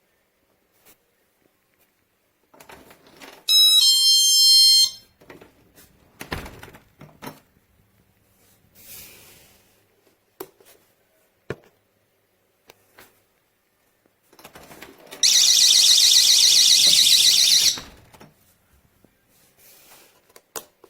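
GE Personal Security window and door alarm: a short electronic chime with a step in pitch about four seconds in, then, after a few clicks and knocks, its shrill, rapidly warbling siren for about two and a half seconds near the end.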